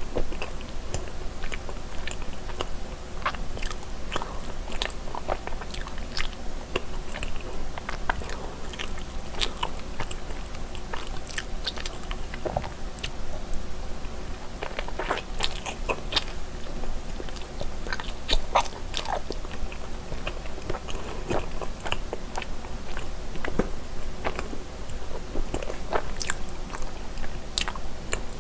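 Close-miked chewing and mouth sounds of a person eating cream cheese-filled mochi rice cakes, with many small irregular clicks throughout.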